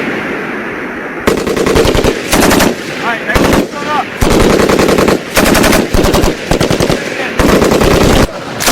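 M240B machine guns firing short bursts of automatic fire, about ten bursts of rapid shots starting about a second in, some overlapping one another.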